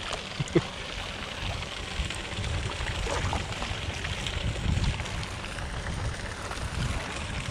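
Water splashing and trickling as bowlfuls of pool water are poured over an elephant's back and rubbed into its skin, with a low rumble under it and a short sharp knock about half a second in.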